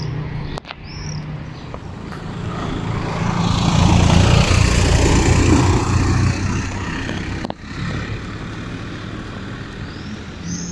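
A motor vehicle passes, its engine and road noise swelling and fading over a few seconds. A bird chirps briefly near the start and again near the end.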